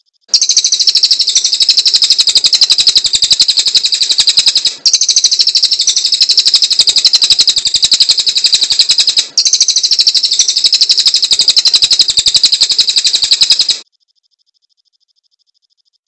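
Cililin songbird singing a loud, sharp, fast-trilled song of rapidly repeated high notes, in three near-identical stretches of about four and a half seconds that follow one another with barely a break. The song stops abruptly about two seconds before the end.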